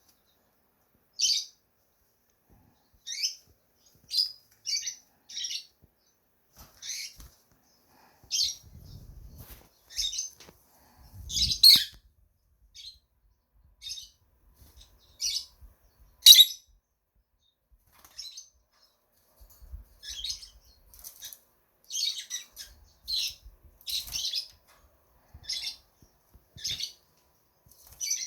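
Pet lovebirds giving short, sharp high chirps, roughly one a second at an uneven pace, with two louder calls near the middle.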